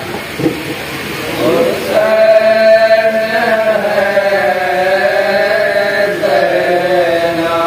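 Men's voices chanting a noha, a slow Shia lament, in long held notes with a slight waver in pitch; the first two seconds are quieter and slide between notes.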